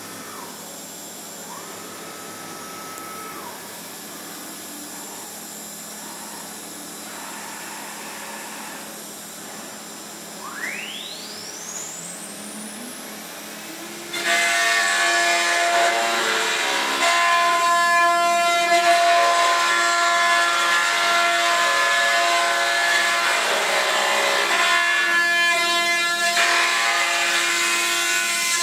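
A 5-axis CNC mill's spindle spinning up with a rising whine about ten seconds in. From about halfway, a much louder steady whine with cutting noise as the tool mills a block of ABS plastic, dipping briefly a couple of times near the end.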